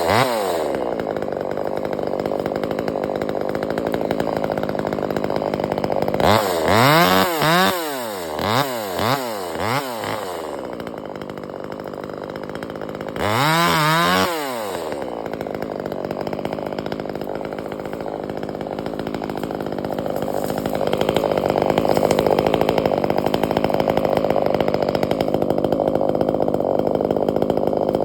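Chainsaw engine running: idling, then the throttle blipped up and down several times about a quarter of the way in and revved once more near the middle, before it runs louder and steadier over the last third.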